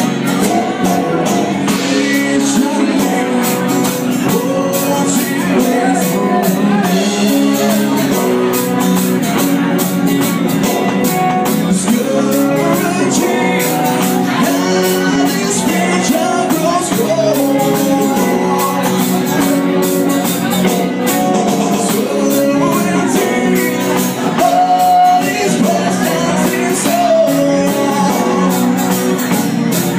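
Live rock band playing an original song: electric and acoustic guitars over a drum kit with steady cymbal hits, with a sung or played lead line on top.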